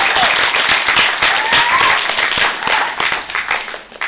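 Audience applause: dense clapping that tapers off near the end, with a short rising call from the crowd about a second in.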